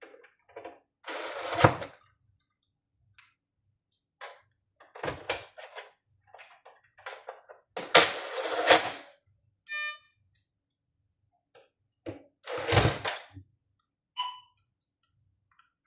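Screws being tightened into the chassis of a Mindray T5 patient monitor to ground its mainboard: four short bursts of tool and handling noise with small clicks between them, and a brief high beep about ten seconds in.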